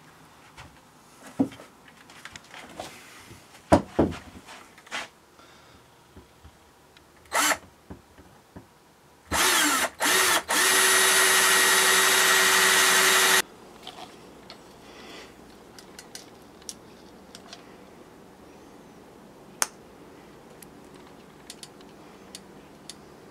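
Cordless drill boring holes into the end of a sword handle: two short bursts about nine seconds in, the motor pitch rising as it spins up, then about four seconds of steady drilling that stops abruptly. Before that, scattered knocks and clicks from the handle and tools being handled.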